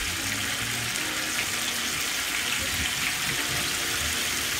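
Rabbit pieces frying in a pot of hot grease: a steady, even sizzle of bubbling oil.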